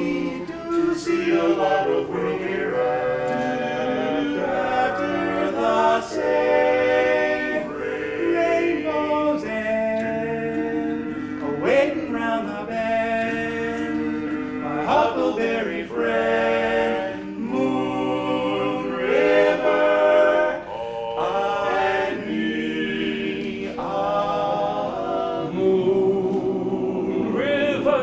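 Men's barbershop chorus singing a cappella in close harmony, voices holding and moving through chords without a break.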